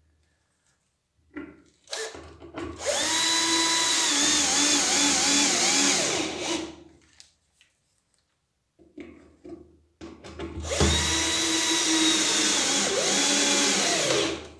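Cordless drill-driver driving two screws into a pine slat, one after the other. Each run lasts about four seconds: the motor whine rises as it spins up, wavers in pitch toward the end, then stops. Light handling knocks come before each run.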